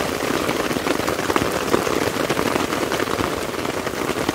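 Heavy rain falling on a tent's fabric, heard from inside the tent: a dense, steady patter of many drops.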